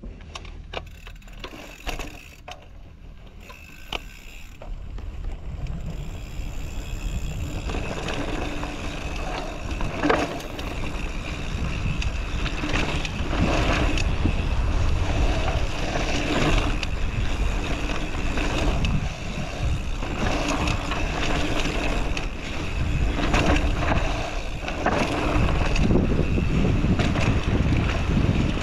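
Mountain bike rolling down a grass and dirt trail: tyre noise and the bike rattling over bumps, with wind rushing over the microphone. It starts quieter with a few knocks and gets louder about seven seconds in as the bike picks up speed.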